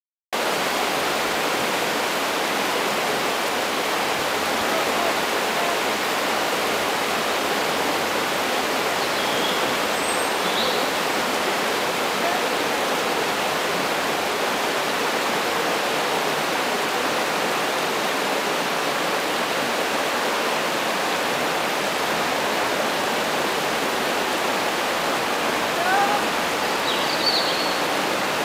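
Shallow river water rushing over stones, a steady hiss with no let-up. A few faint short high chirps come through about ten seconds in and again near the end.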